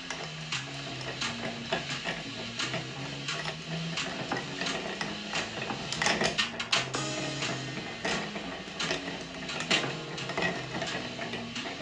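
Long bar spoon stirring ice in a stemmed glass mixing glass, with frequent light clinks of ice against the glass, over background music.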